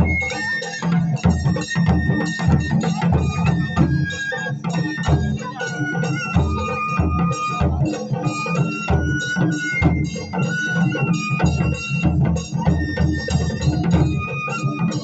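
Japanese taiko drum ensemble playing a fast, driving rhythm on barrel drums and a large drum, with a high bamboo flute (shinobue) playing a melody of held notes over the drumming.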